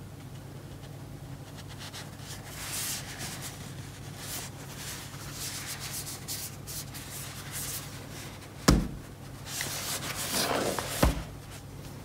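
Knit-gloved hands rubbing and scraping against a cardboard mouse box as it is turned over and handled. Two sharp knocks, one about two-thirds of the way through and one near the end, as the box comes down on a wooden table.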